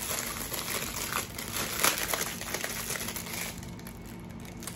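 Clear plastic wrap crinkling and crackling as fingers peel it off a bar of soap, dying down near the end.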